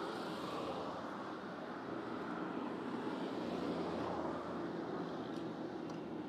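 Steady outdoor background noise, an even low hum that swells slightly a little past halfway.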